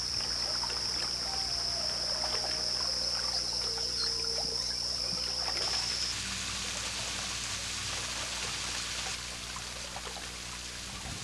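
Natural forest ambience: a steady high-pitched whine for the first half, then about six seconds in the even hiss of a running stream takes over and softens near the end.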